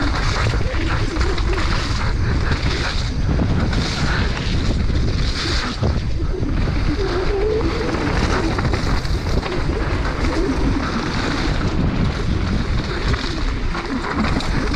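Wind rushing over the camera microphone of a mountain bike descending at speed, with the steady rumble and crackle of the tyres on a loose, dusty dirt trail.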